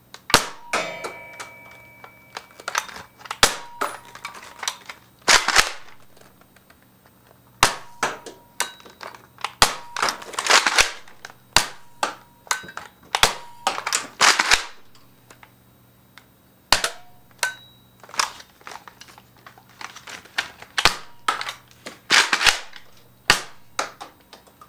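Nerf Rough Cut 2x4 pump-action dart blaster fired over and over: irregular sharp pops as darts leave the barrels, with longer scraping strokes of the pump slide being worked every few seconds. A brief ringing tone follows one of the first shots.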